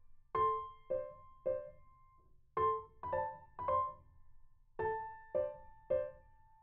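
Background music: a slow melody of single struck notes that ring and fade, played in three phrases of three notes each.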